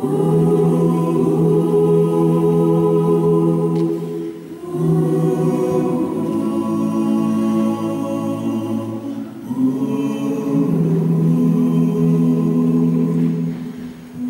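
Gospel choir singing unaccompanied in held chords, in phrases of about five seconds with short breaks between them.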